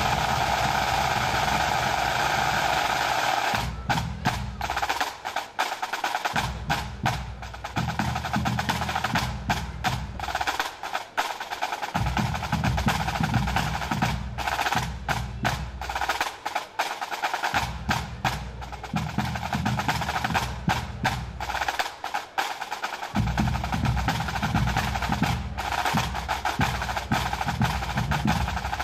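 Bagpipes sounding over their steady drones, stopping about three and a half seconds in; then the pipe band's drum corps plays alone, with rapid snare drum rolls and strokes and the bass and tenor drums coming in and out in spells.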